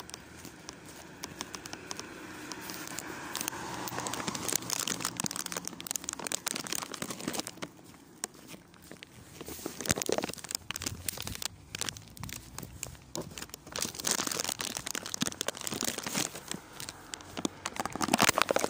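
Plastic candy bag crinkling and rustling as it is handled, full of small sharp crackles that come and go, loudest about halfway and near the end.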